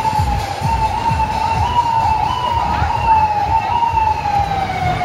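Emergency vehicle siren: a single loud tone that slides slowly down and jumps back up every second or less, over a low rumble of street traffic.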